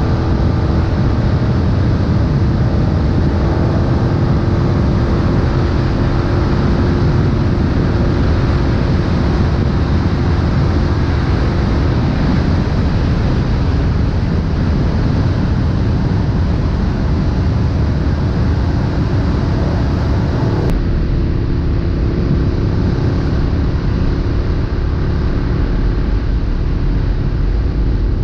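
KTM 1290 Super Duke R's V-twin engine, fitted with an Austin Racing exhaust, running steadily under way.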